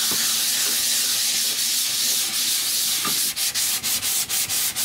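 Hand sanding a caravan's wood-effect cabinet panel with a sheet of sandpaper pressed flat under the palm, a scratchy rasp that keys the surface for primer. Long, even strokes give way about three seconds in to quicker short back-and-forth strokes, about five or six a second.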